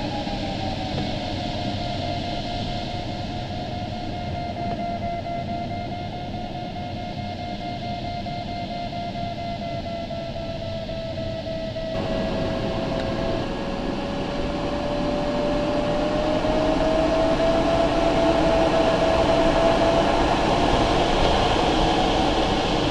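Steady rush of air around the cockpit of an LS-4a glider in flight, with the electronic variometer's continuous tone drifting slowly in pitch. The tone rises a little and the rush grows louder in the second half.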